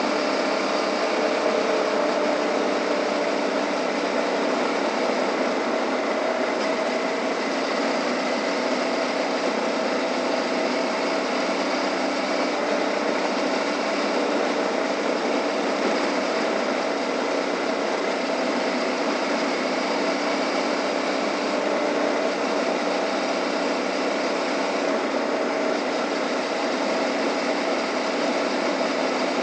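Suzuki V-Strom 650's V-twin engine running at a steady cruise, with a constant rush of wind and road noise.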